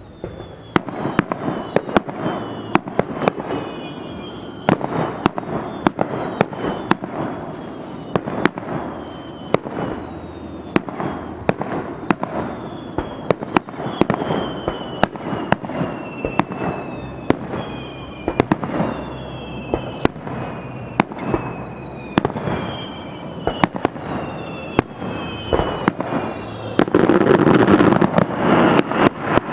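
Starmine fireworks barrage: a rapid run of shell bursts and sharp bangs, with many whistles falling in pitch throughout. Near the end comes a dense, loud crackling burst.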